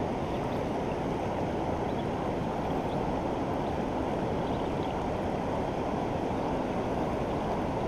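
Steady rush of flowing river water, an even, unbroken noise.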